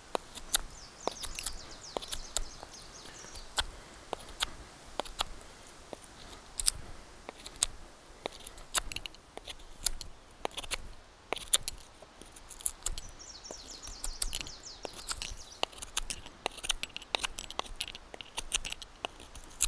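NC Custom SCAR fixed-blade knife whittling wood in repeated short scraping strokes, with birds chirping in the background.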